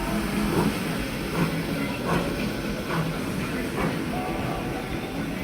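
1891 Baldwin 2-6-0 steam locomotive working hard up a grade, its exhaust chuffing in a slow, even beat of a little more than one chuff a second over a steady rumble.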